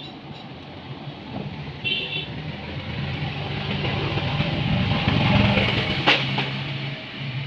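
Yamaha R15's single-cylinder engine being revved, the sound building over a few seconds and then dropping back to a steady idle, with a sharp click about six seconds in.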